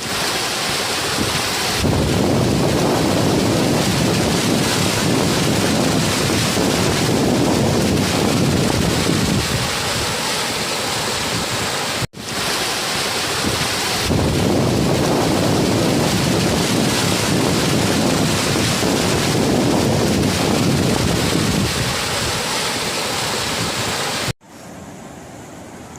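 Loud, steady rushing of floodwater after heavy rain, with wind buffeting the microphone. It cuts off abruptly about halfway through, resumes, and near the end gives way to a much quieter hiss.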